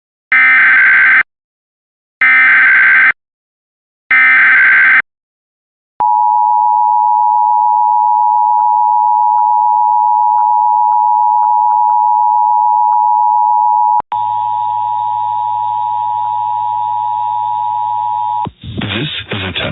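Emergency Alert System tones: three short bursts of the screeching digital SAME header, then the steady two-tone attention signal (853 and 960 Hz) for about eight seconds. After that comes a further four seconds of tone over a low hum. The header and attention signal announce that an emergency message follows.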